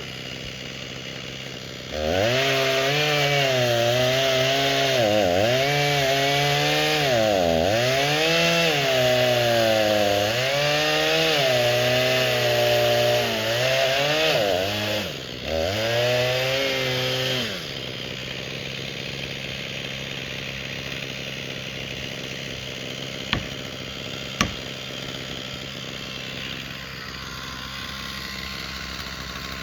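Chainsaw cutting oak at full throttle, its engine pitch sagging and recovering again and again as the chain bogs in the wood. The saw stops after about fifteen seconds, leaving a steady engine idling underneath and two sharp clicks.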